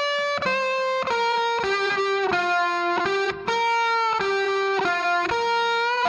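Background music: a single melody of held notes that change about every half second to second, some sliding into the next, with no drums.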